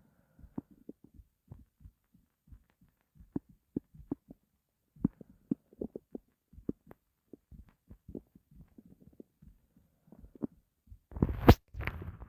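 An empty, hungry stomach gurgling, heard close up: irregular short low pops and bubbling gurgles, with a louder burst of noise near the end.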